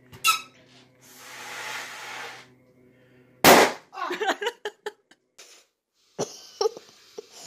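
A large latex balloon being blown up by mouth with a rush of breath, then bursting with one loud bang about three and a half seconds in.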